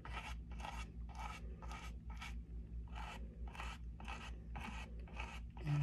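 Quick short strokes of a small paintbrush scratching across stretched canvas, about three a second, with a brief pause just after two seconds in.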